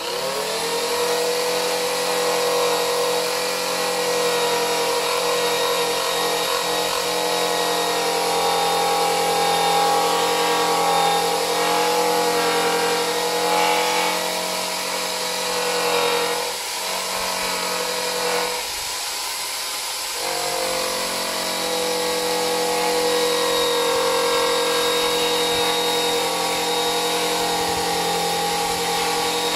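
Handheld rotary tool with a purple strip disc spinning up, then running with a steady high whine as the disc works over the painted steel edge of a car's wheel arch, stripping paint and filler off an old repair. The whine dips briefly twice past the middle before steadying again.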